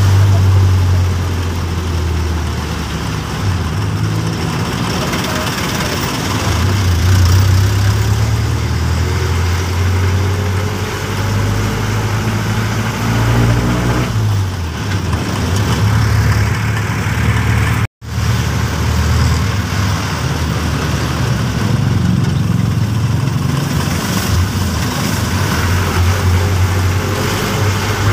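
Jeepney's diesel engine running as it drives through town traffic, heard from inside the cabin as a steady low hum. About halfway through the engine note slides down and then climbs again, and the sound drops out for an instant a few seconds later.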